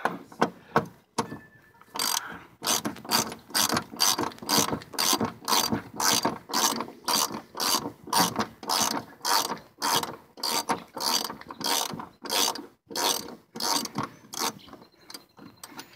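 Ratchet wrench being worked back and forth on a front-suspension bolt, about two strokes a second, each stroke a quick run of clicks. The ratcheting stops about two seconds before the end.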